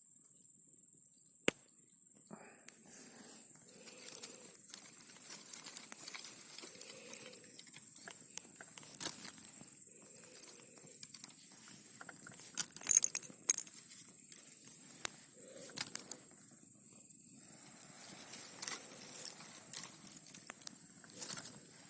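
Wood campfire crackling, with irregular sharp pops and snaps throughout and a louder burst of pops about thirteen seconds in.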